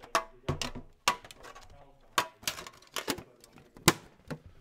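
Hockey trading cards and a foil Upper Deck pack being handled: a run of sharp clicks, taps and rustles, the loudest one a little before the end.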